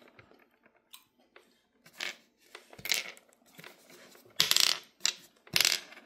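Glass gem stones dropped one at a time into the pits of a wooden mancala board, each landing as a sharp clack of glass on wood and glass. The clacks come about a second apart, and the last two are the loudest.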